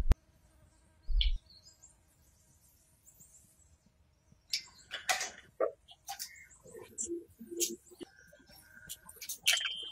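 Metal engine parts being handled on a bench: a short dull thump about a second in, then from about halfway a run of light clicks, clinks and scrapes as parts of a Honda 110cc motorcycle engine are lifted out of its crankcase, with a couple of brief high tones near the end.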